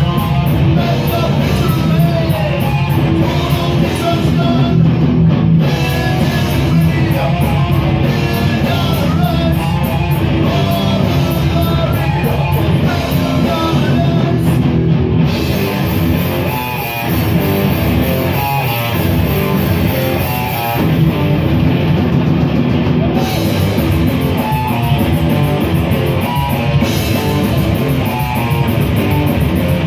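Live heavy rock band playing loud: electric guitar, drum kit and a singer's vocals, without a break.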